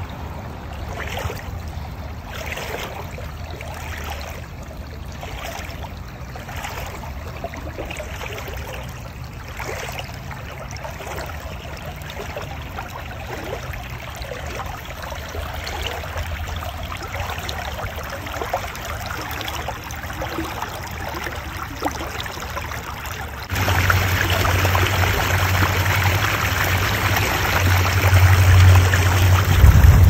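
Small shallow creek running over stones and leaves, a steady trickling and babbling flow. Past the two-thirds mark it jumps abruptly louder and brighter, and a low rumble rises near the end.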